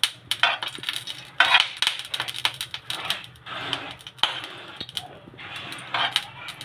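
Mustard oil crackling and spitting in a pan as it heats, with many irregular sharp pops: a little water left in the pan is spattering in the oil.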